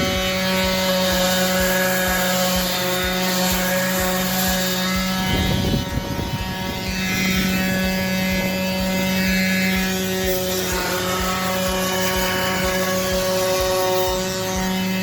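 DeWalt DCW210 cordless brushless random orbital sander running steadily while sanding, a constant motor hum with a brief noisier dip about five and a half seconds in.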